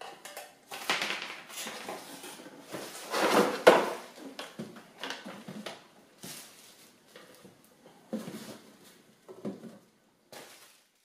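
Unpacking noise: plastic wrapping rustling and cardboard boxes and traffic-light parts being moved and set down. It comes in irregular bursts, loudest a little under four seconds in.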